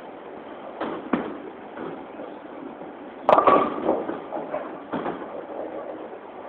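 Bowling ball hitting the pins about three seconds in: a sharp crash followed by clattering pins dying away, over the steady rumble of a bowling alley. Two sharper knocks come about a second in.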